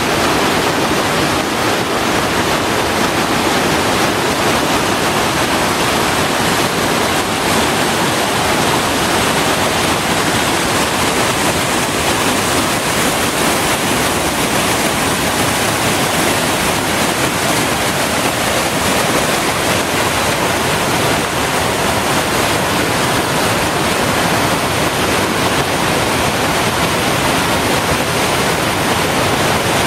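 Small waterfall on a creek, its water falling and splashing in a loud, steady rush.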